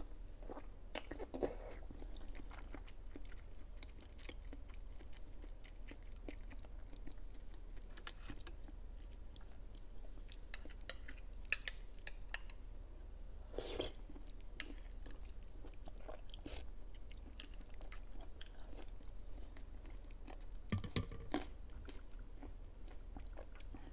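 Close-miked chewing and biting of soft fruit jelly sticks soaked in coconut water, with scattered wet clicks and squelches.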